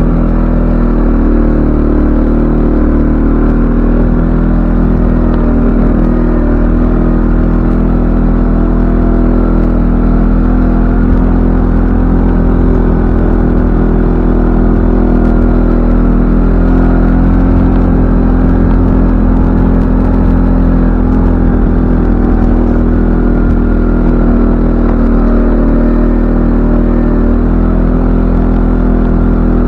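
CFMoto ATV engine running loud and steady at a fairly even speed, its pitch wavering only slightly, as the machine is ridden.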